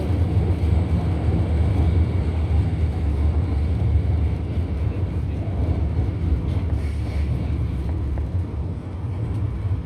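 Steady low rumble inside a Shanghai Metro Line 14 train carriage standing at a station with its doors open, easing slightly near the end.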